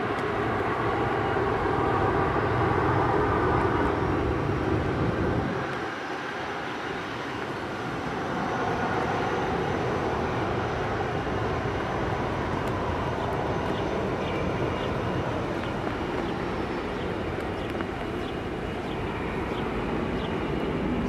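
Boeing 747-400 jet airliner landing: four-engine jet noise with a whine, loudest as it flares over the runway. It drops off about five seconds in, then swells again into a steady rush as the jumbo rolls out along the runway.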